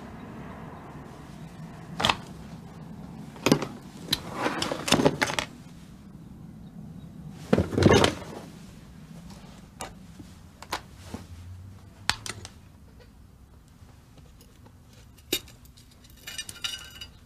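Knocks, clicks and rustles of a bedroom being searched by hand: a bedside drawer rummaged through and things shifted, with the loudest thump about eight seconds in. Near the end there is a short metallic rattle.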